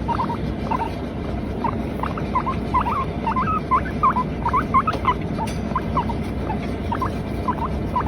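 Teddy guinea pig calling in a continuous run of short squeaky chirps, about two or three a second.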